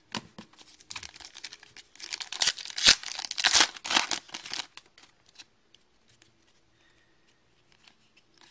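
Wrapper of a trading-card pack being torn open and crinkled by hand, a crackling run of tearing for a few seconds that is loudest about three seconds in. It then gives way to faint card handling.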